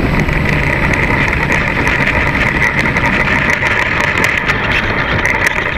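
Electric motor and propeller of a ParkZone Stinson RC plane running steadily at high throttle, picked up close by a camera mounted under the fuselage, with the wheels rumbling over asphalt during the takeoff roll.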